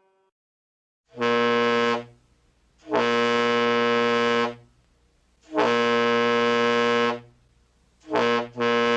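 Truck air horn sounding in separate blasts at a steady pitch: a short one, two longer ones of about a second and a half each, then two quick toots near the end.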